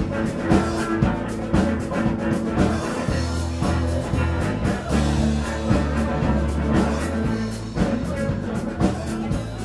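Music with a steady drum beat over held bass notes.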